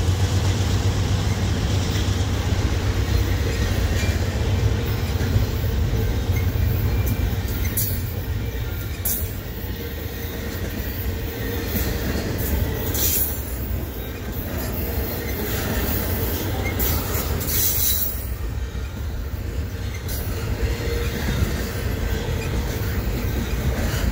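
A long BNSF double-stack intermodal freight train passing close by. The diesel locomotives' low rumble at the start gives way to the steady rolling of the container cars on the rails. Several short, high-pitched wheel squeals come around the middle.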